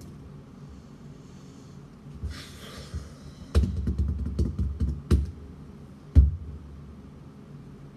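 A breathy sigh, then a quick flurry of knocks and taps of hands on a tabletop, ending with one hard thump on the desk a little after the middle. The desk-pounding is in frustration.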